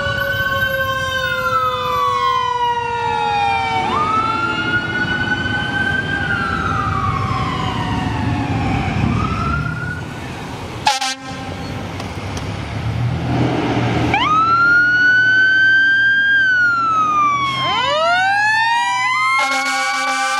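Fire engine siren wailing, each sweep rising quickly and falling more slowly every few seconds, over the truck's engine rumble as it drives past. The sound cuts off abruptly about 11 s in and the wail picks up again. A run of quicker rising sweeps comes near 18 s, and a steady horn blast starts near the end.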